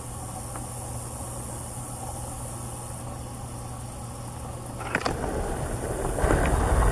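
Steady low mechanical hum, like an idling engine or distant traffic, with a faint high hiss. About five seconds in, a click, then louder rough rustling noise.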